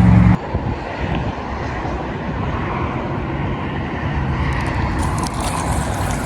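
Steady rushing noise of wind buffeting the microphone outdoors, with a few faint clicks in the second half.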